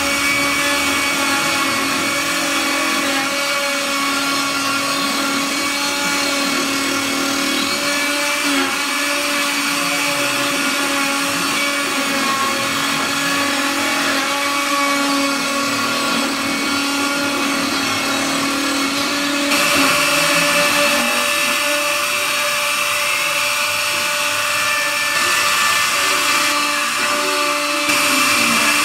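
CNC router's electric spindle running with a steady whine while its small carving bit mills a relief into a wooden board, with the hiss of the bit cutting wood. The sound shifts abruptly about two-thirds of the way through and again near the end.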